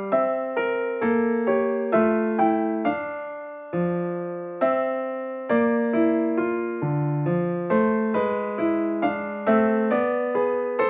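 Background piano music: single notes and chords struck about two to three times a second, each fading away after it is played.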